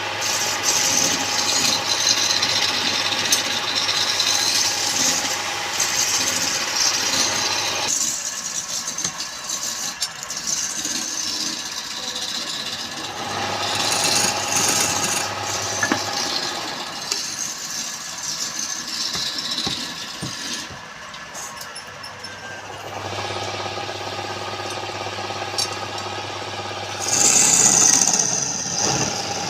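Wood lathe running while a turning tool cuts the spinning wood, a hissing scrape that comes in several stretches with short pauses between.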